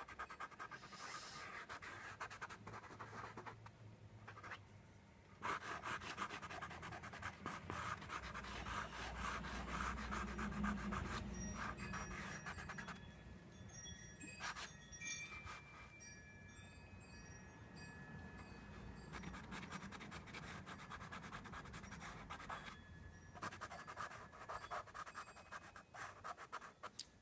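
Pencil scratching on paper in quick repeated strokes as a drawing is shaded and outlined.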